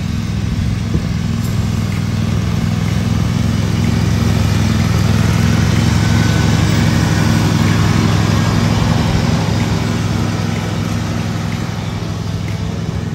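Riding lawn mower's engine running steadily with its cutting deck going, a low engine drone under a wash of whirring and grass noise. It grows louder toward the middle as the mower passes close, then eases off.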